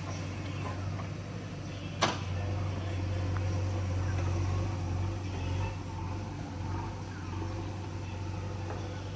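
Earthmover's diesel engine running steadily, with a single sharp knock about two seconds in.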